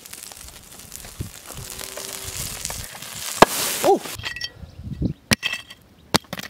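Wood fire crackling and hissing under a flat stone cooking slab, building until the heated stone bursts with one sharp crack about three and a half seconds in. A brief falling tone follows, then several sharp clinks and knocks as fragments land.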